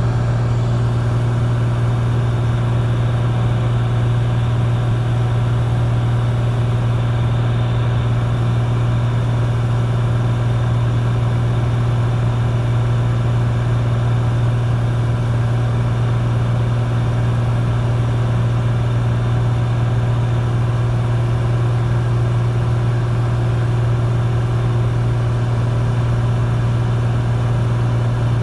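Single-engine propeller plane's engine and propeller running steadily in flight, heard from inside the cabin as a loud, constant low hum that does not change.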